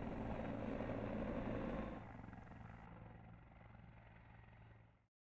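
Helicopter sound effect playing back from a film soundtrack. It steps down in level about two seconds in, then cuts off abruptly to silence near the end.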